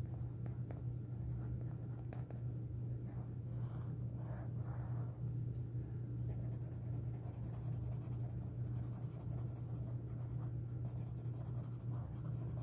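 Pencil scratching on paper as a word is written, then a Derwent Graphitint pencil shading a small swatch with quick back-and-forth strokes from about halfway in. A steady low hum runs underneath.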